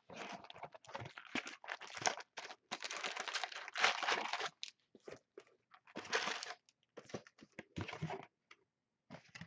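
Plastic shrink wrap crinkling and cardboard rustling as a sealed 2012 Panini Contenders football card box is unwrapped and its lid flipped open. Dense, irregular crackling for the first four seconds or so, then scattered short rustles.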